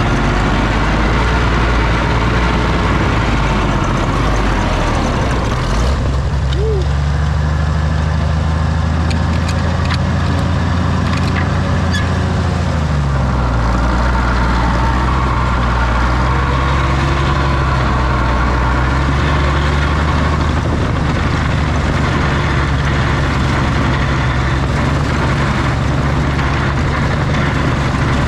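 Oliver OC-6 crawler tractor's engine running steadily under load. Its speed picks up about six seconds in and drops back again about halfway through.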